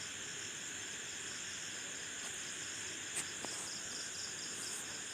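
Crickets chirping steadily in the background, a fast regular high-pitched pulsing, with a single short click about three seconds in.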